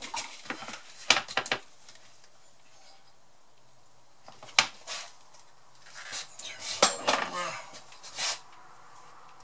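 Knocks and scraping as a small blender's jug is tapped and scraped out over a mixing bowl to empty out pastry crumb mix. There are a few sharp knocks in the first second and a half, one more about four and a half seconds in, then a busier run of knocks and scraping from about six to eight seconds.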